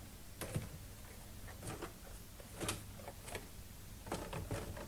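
Scattered light clicks and taps, about seven in all and irregularly spaced, from handling die-cast toy cars and their packaging, over a steady low hum.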